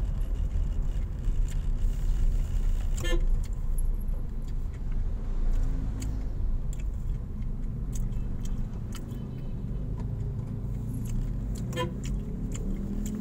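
Honda Mobilio's cabin as the car drives slowly in city traffic: a steady low engine and road rumble. Two brief horn toots come from the traffic, about three seconds in and near the end, with scattered light clicks and rattles.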